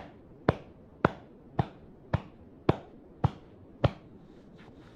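A hand tapping rhythmically on the upper back in qigong self-massage, a steady beat of about two sharp taps a second. The taps stop just before the end, leaving only faint, quicker ticks.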